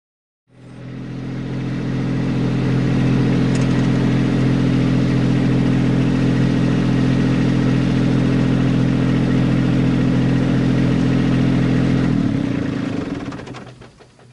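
Kubota B2650 compact tractor's three-cylinder diesel engine running steadily at constant speed, then dying away near the end.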